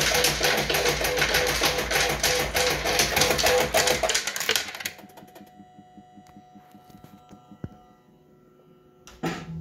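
Bell-Fruit Cash Explosion fruit machine paying out a jackpot: a rapid clatter of coins dropping into the payout tray over the machine's repeating electronic tune, for about five seconds. The payout then stops and only faint electronic tones remain, until the machine's sounds start again loudly just before the end.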